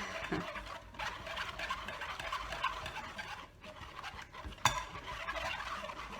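A spoon stirring and scraping blended orange-juice pulp around a fine-mesh kitchen strainer to push the juice through, a continuous scratchy rasp with one sharp knock of utensil on strainer about three-quarters through. The mesh is so fine that the pulp clogs it and the juice passes slowly.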